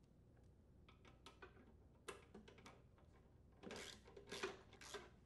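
Faint, scattered clicks and scuffs of a socket ratchet and hands working at the carburetor's mounting bolts on a Briggs & Stratton small engine. A few louder scrapes and clicks come near the end.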